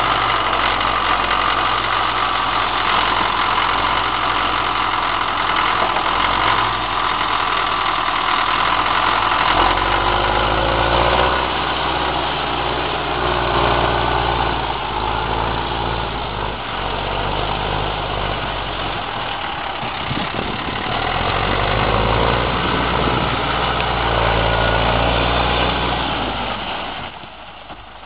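Cat 518 log skidder's diesel engine running as the machine pulls away and drives off, its sound fading near the end as it gets farther away.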